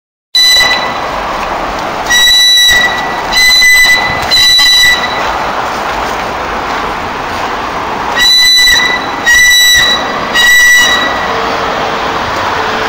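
A pet parrot calling: seven loud, shrill, level-pitched cries of about half a second each, four in quick succession and then, after a pause of a few seconds, three more.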